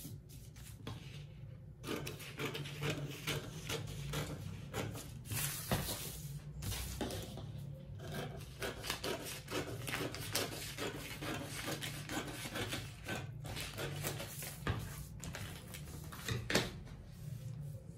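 Scissors snipping through pattern paper, with the paper rustling and sliding on the tabletop in irregular crackles and scrapes, and one sharper tap near the end.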